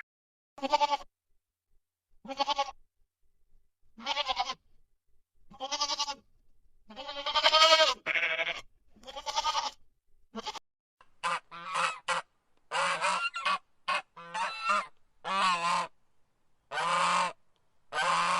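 A farm animal calling again and again: about seven separate calls spaced out over the first half, then a quicker run of longer calls in the second half.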